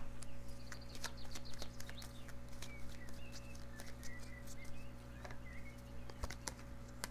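Light, irregular clicks and ticks of oracle cards being handled and drawn from a deck, over a steady low hum. A few faint short chirps come in about a third of the way through.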